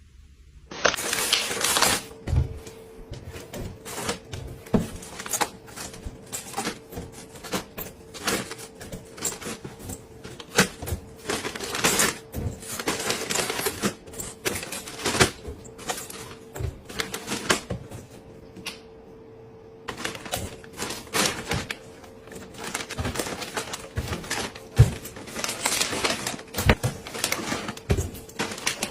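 Rapid, irregular clicking, tapping and clattering of household items, containers and packaging being handled and set down during a home restock. A steady faint hum runs beneath it.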